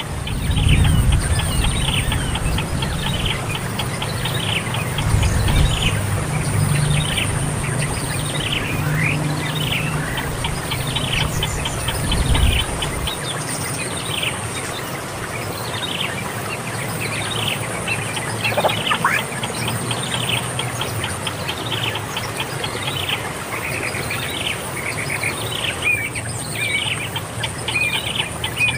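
Birds calling with many repeated short, falling chirps, over a constant high-pitched buzz. A low rumble sits underneath for roughly the first half.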